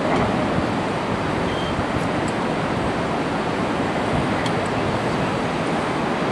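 Steady rushing of river rapids, an even, unbroken noise, with a few faint clicks about two and four and a half seconds in.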